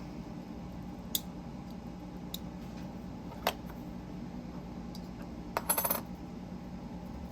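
Black Mirror Designs dial fidget toy being handled: a few single sharp clicks about a second apart, then a quick run of clicks near the end as its parts are worked.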